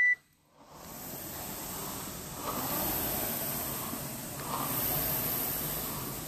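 Air rowing machine's fan flywheel spinning up from rest as a rower begins pulling, a whooshing rush that swells with each stroke, about one surge every two seconds.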